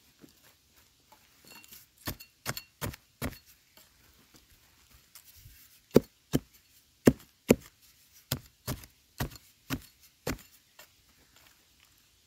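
Metal digging blade chopping into dry, hard soil. A few strikes come about two seconds in, then from about six seconds in a steadier run of roughly two strikes a second.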